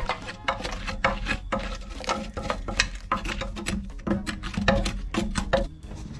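Parts of an old iron stove being handled and fitted: a busy run of small metal knocks, taps and clatters.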